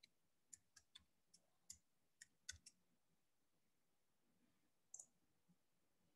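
Faint computer keyboard keystrokes: about nine quick taps over the first three seconds, typing a folder name. Then a single computer mouse click near the five-second mark.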